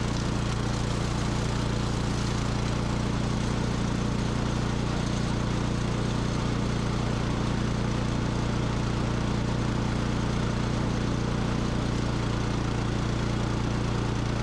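Remote-control flail mower's engine running steadily under working load, a constant, unchanging drone.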